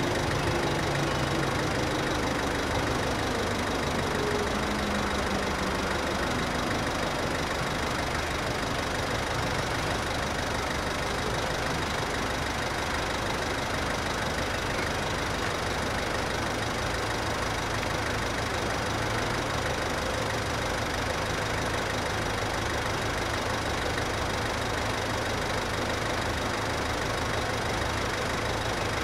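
Level-crossing warning bells ringing steadily while the barriers stay down, with the train that has just passed fading away in the first few seconds.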